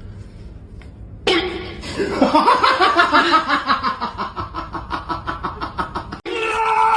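Hearty laughter in quick repeated bursts, starting about a second in. Near the end it cuts off suddenly and a steadier pitched sound begins.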